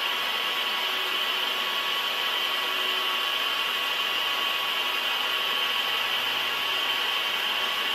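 Steady machine-shop noise from heavy lathe machining: an even, unbroken hiss with a faint high whine.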